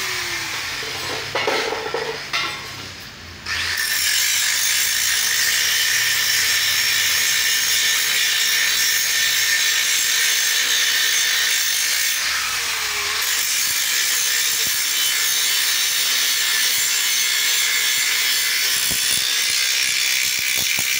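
Handheld angle grinder grinding down weld joints on a stainless steel tube frame: a steady abrasive hiss over the motor's whine. The grinding eases off for a couple of seconds near the start, then the motor spins back up and grinding continues, its pitch dipping briefly about halfway through.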